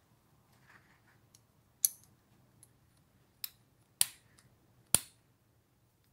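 Restored Lockwood padlock being worked by hand and with its key: sharp metallic clicks as the steel shackle snaps shut and releases. Four loud clicks come in the middle, with a few lighter ticks of the key and mechanism between them.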